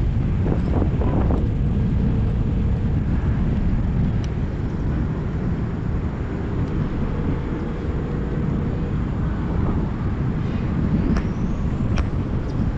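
Strong wind blowing across the microphone, a dense low rumble that goes on throughout.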